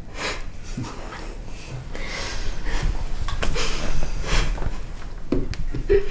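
A woman sniffling and breathing in short, shaky breaths as she fights back tears, with a brief voiced catch or sob near the end.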